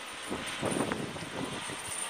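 Snowplow truck with its front blade lowered, passing through deep snow: a steady noisy vehicle rumble that swells for a moment just under a second in.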